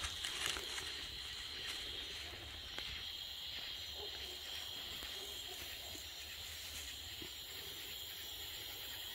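Night insects, likely crickets, keeping up a continuous high-pitched buzzing chorus. A few light snaps and rustles from dogs moving through dry grass and twigs come in the first second or so.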